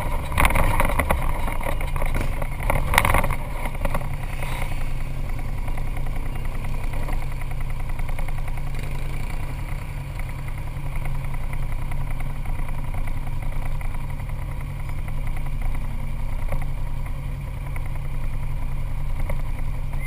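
ATV engine idling steadily, heard close up. The first three seconds or so hold a louder passage of noise over the idle.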